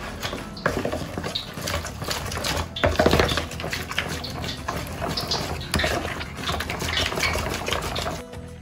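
Fish batter being mixed by hand in a bowl: a utensil clicks and scrapes rapidly and irregularly against the bowl amid wet stirring. The mixing stops near the end.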